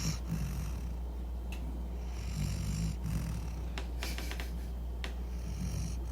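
Dog snoring in slow, even breaths, one snore about every two and a half to three seconds, over a low steady hum, with a few faint clicks between the snores.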